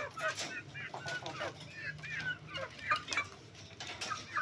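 Birds calling: many short, high chirps and clucks in quick succession.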